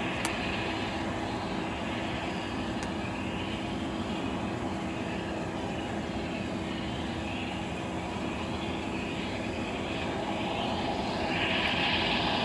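Jet aircraft engine noise on an airfield apron: a steady drone with a constant hum, and a higher hiss that swells near the end.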